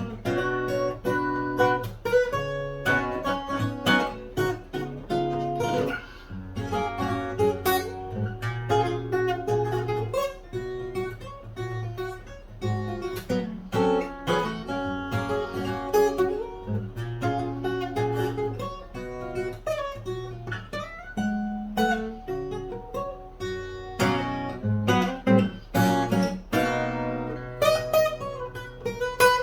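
Solo fingerstyle acoustic guitar in EADGBD tuning with a capo at the second fret, playing a melody over a steady bass with many quick plucked notes and occasional strums.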